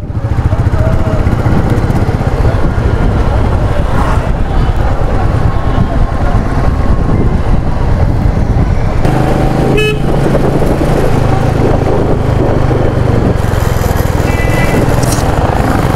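Motorcycle riding in traffic: a steady engine and low wind rumble, with short vehicle horn toots about ten seconds in and again a few seconds later.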